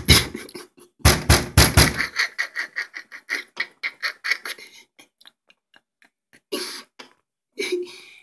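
Rapid run of percussive knocks and taps: heavy thumps for about two seconds, then lighter, quicker taps at several a second for about three more, and two short bursts near the end.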